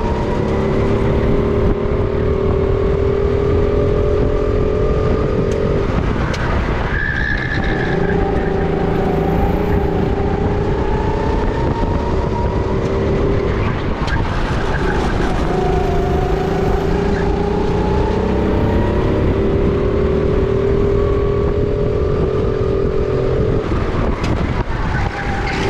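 Sodi RT10 kart's single-cylinder four-stroke engine heard onboard at racing speed, its pitch climbing steadily along the straights and dropping off sharply under braking into corners, three times.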